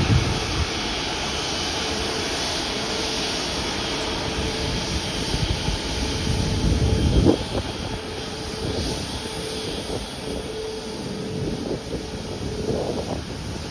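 Airbus A350-941's Rolls-Royce Trent XWB jet engines running steadily as the airliner moves past, a steady hum under a rushing noise. A low rumble swells and drops off sharply about seven seconds in.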